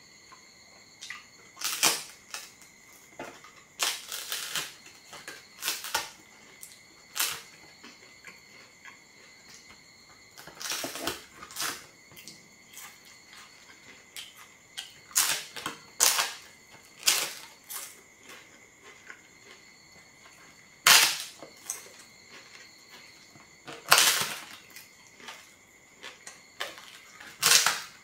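Thin, crisp flatbread crunching as it is bitten and chewed: sharp crackling crunches at irregular intervals, every second or few, sometimes several in quick succession.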